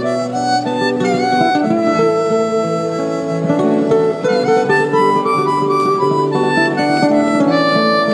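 Harmonica cupped against a handheld microphone and played amplified, in held notes that change pitch every second or so, over an acoustic guitar accompaniment.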